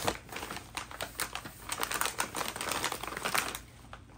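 Plastic wrapping crinkling and crackling as a wrapped food packet is handled and lifted out of a cardboard box, a quick run of crackles that dies away near the end.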